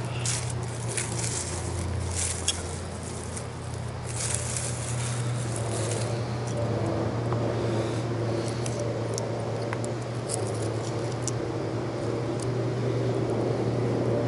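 Footsteps and rustling in dry leaf litter on a forest floor, with scattered small crackles and clicks, densest in the first half, over a steady low hum.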